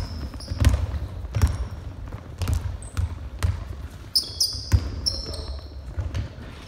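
Basketball dribbled on a wooden gym floor, a thud about every three-quarters of a second, with several short, high sneaker squeaks on the floor a little past the middle.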